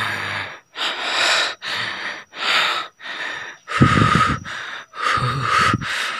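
A man breathing hard: about eight loud, noisy breaths in and out in quick succession, a couple of them carrying a low groan in the voice.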